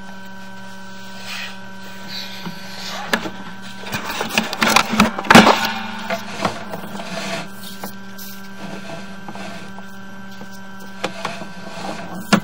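Sewer inspection camera's push cable being fed down a side sewer: rattling knocks and scrapes from the cable and camera head, thickest in the middle and a few more near the end, over a steady hum from the camera system.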